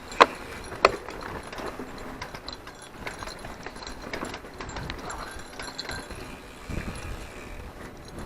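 Mountain bike riding along a dirt forest trail: tyres crunching over the ground and the bike rattling over bumps, with two sharp clacks in the first second.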